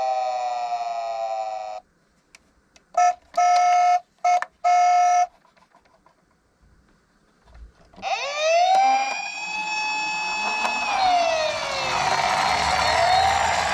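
Electronic sirens of toy emergency-vehicle minicars. A falling wail cuts off about two seconds in, and a few short beeps follow. After a pause, a siren rises at about eight seconds and wails up and down over a low rumble.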